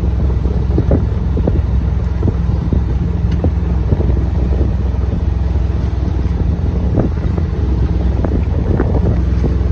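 Yacht's 10-horsepower motor running steadily, a low even drone, with wind buffeting the microphone.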